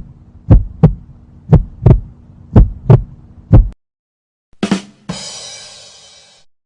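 Heartbeat sound effect: paired low thumps (lub-dub) about once a second over a low hum, stopping after about three and a half seconds. After a short pause comes a 'ba-dum tss' rimshot sting, two quick drum hits and then a cymbal that rings and fades.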